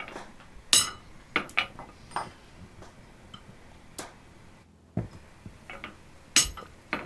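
A hammer tapping a hand punch into a cold bar of square mild steel on an anvil, marking out the guard's slot: a series of sharp, irregularly spaced metallic clinks with a brief ring, the loudest about a second in and near the end.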